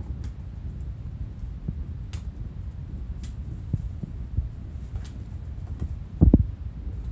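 Kittens' paws pattering and thudding on tatami mats as they play, over a steady low rumble. A heavier low double thump comes about six seconds in, as a kitten jumps off a floor cushion onto the mats.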